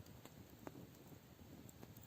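Wood campfire crackling faintly, with two soft pops over a low, steady background.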